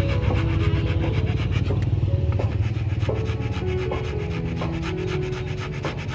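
Rottweiler panting fast with its mouth open, right at the microphone: a rapid, even rasping rhythm over a steady low rumble.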